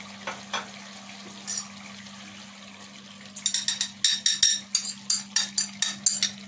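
Dry spices being tipped from a small glass bowl into a steel cooking pot: a quick, irregular run of sharp glassy clinks and taps starting about three seconds in, over a steady low hum.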